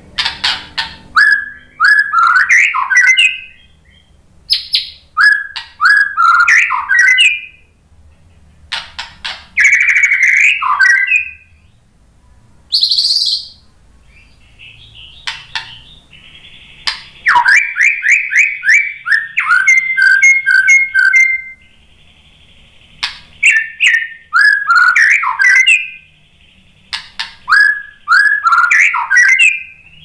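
White-rumped shama singing: short, loud phrases of clear whistles and rapid trilled notes, repeated every few seconds with brief pauses between, and one longer run of quickly repeated notes about halfway through.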